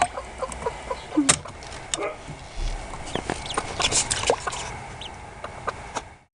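Three-week-old ducklings peeping in short, high chirps while they swim, with scattered sharp clicks among the calls. The sound cuts off abruptly near the end.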